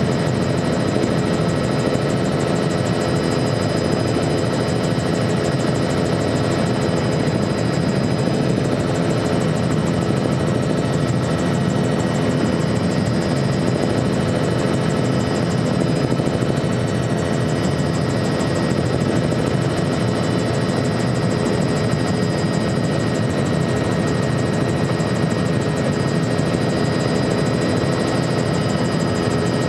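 Helicopter engine and rotor noise heard from inside the cabin in flight: a constant loud drone with steady whining tones over it, unchanging throughout.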